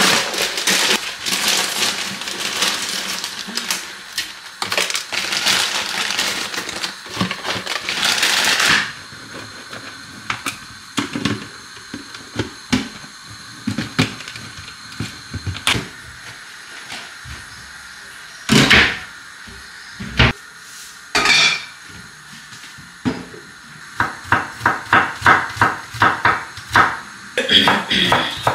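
Kitchen handling noises: a rustling, scraping sound for the first nine seconds or so, then scattered clicks and two short rattles. Near the end, a chef's knife chops rapidly on a wooden cutting board, about three strokes a second.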